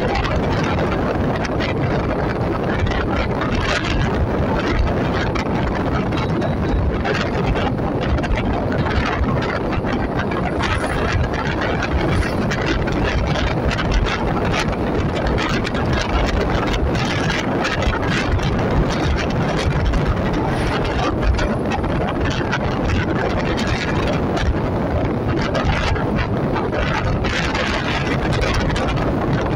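Wind buffeting the microphone of a moving vehicle, with steady road and engine noise beneath.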